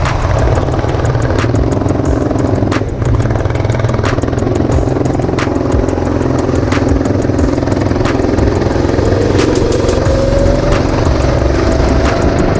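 Go-kart engine heard from an onboard camera, running under load as the kart drives round the track. It lifts briefly about three seconds in, and the engine note rises as the kart accelerates near the end.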